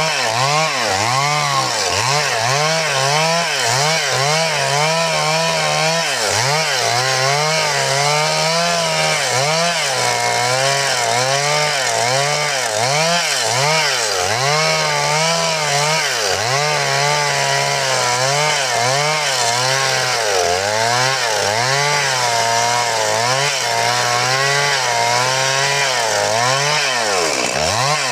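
Stihl MS 382 two-stroke chainsaw running at high revs, cutting wood, its pitch wavering up and down again and again as the load changes.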